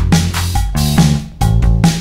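Background music with a steady drum beat over low bass notes.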